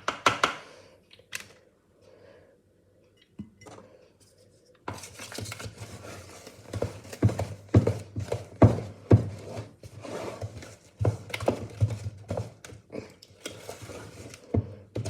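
Cake batter being mixed in a bowl: a few scrapes at first, then, from about five seconds in, continuous irregular clinking and scraping of the mixing utensil against the bowl.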